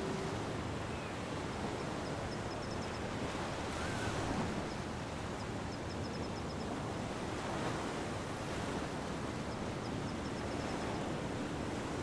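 Ocean surf washing on a beach, a steady rush that swells about four seconds in, with faint high chirps in short runs and a low steady hum coming in near the end.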